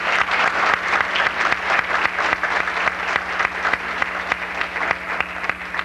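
Audience applauding: dense clapping from many hands that thins out toward the end.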